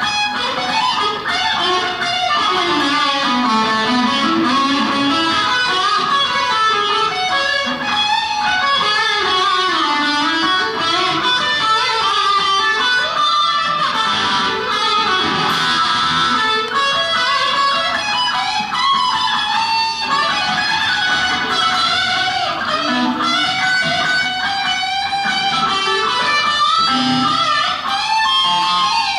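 Solo electric guitar played through a small amplifier: a fast, busy line of single notes moving up and down in pitch, with no other instruments.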